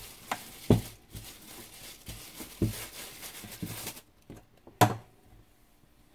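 Plastic-gloved hands squeezing and turning battered pieces of flounder in a stainless-steel bowl. The disposable glove crinkles and rustles, with a few knocks against the bowl. The rustling stops about four seconds in, and a single sharp knock follows about a second later.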